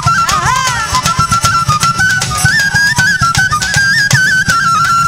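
Bangladeshi Vandari folk music: a high melody instrument holds and steps between notes over a steady drum beat, with a sliding sung phrase about half a second in.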